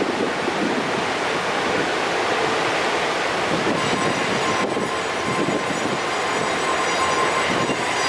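A CSX train running past, heard over the steady rushing of a large waterfall. Thin, high train-wheel squeal comes in about four seconds in.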